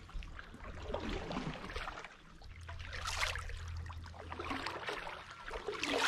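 Kayak paddle strokes: the blade dipping and pulling through the water with splashing and dripping, a stroke about every two to three seconds.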